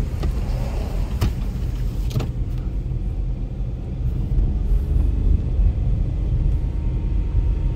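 Car travelling on a road: a steady low engine and road rumble, with three light knocks about a second apart in the first few seconds.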